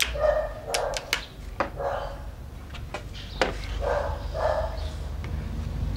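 Short barks repeated about once a second, mixed with several sharp clicks.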